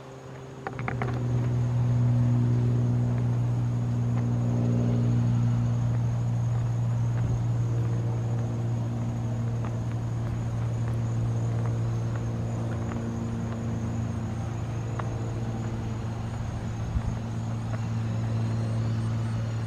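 A steady, low mechanical drone, like an engine running at a constant speed, with several overtones; it swells up about a second in and then holds steady.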